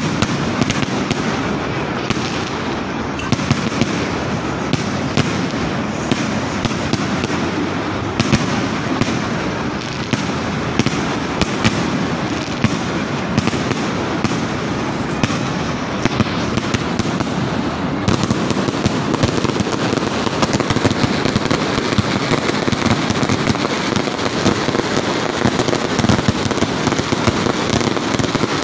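A fireworks display going off without pause: rapid bangs from aerial shells bursting over a dense crackle. About two-thirds of the way through it grows denser and more crackly.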